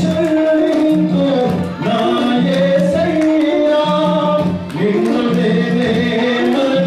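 A man singing a worship song into a microphone, his voice amplified, with a low held accompaniment note that comes and goes.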